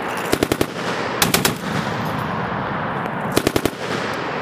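Browning M2 .50-calibre heavy machine gun on a tripod firing three short bursts of four or five rounds each, with about a tenth of a second between shots.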